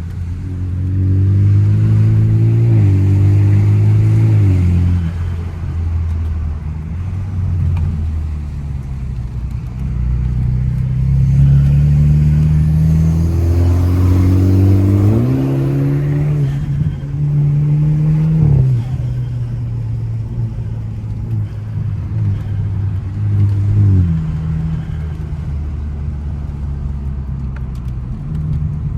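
Car engine accelerating hard through the gears on a winding road, its note climbing and then dropping sharply at each shift several times, with steadier cruising stretches between.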